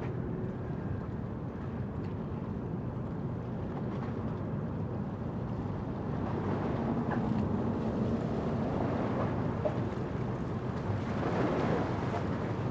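Steady low rumble of outdoor background noise, swelling slightly about six seconds in and again near the end.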